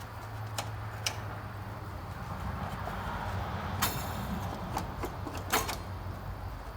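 Scattered sharp clicks and light knocks, with a short rattle about four seconds in, as the sheet-metal side panels of a John Deere 2210 compact tractor are unfastened and handled.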